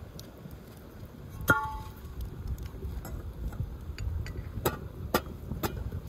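Cookware clinking and knocking: one ringing clink about a second and a half in, then a few sharp taps near the end, over a steady low rumble.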